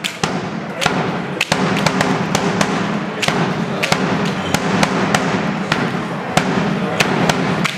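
Bass drum struck repeatedly with a mallet, sharp irregular beats about two to three a second, over a steady low hum of the hall.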